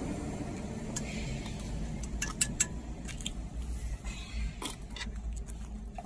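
Scattered light clinks and knocks of cookware as food is stirred in a wok on a portable gas stove and bowls and containers are handled, over a steady low rumble.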